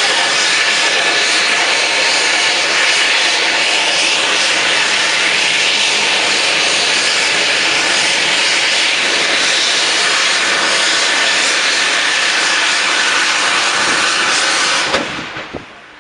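SMARAGD second-stage hybrid rocket motor (liquid oxygen oxidiser) firing on a static test stand: a loud, steady roaring hiss. The burn cuts off abruptly about fifteen seconds in, followed by a few crackles.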